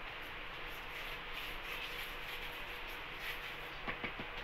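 Steel spoon rubbing oil over a chapati on a plate, soft scraping over a steady background hiss, with a few light clicks near the end.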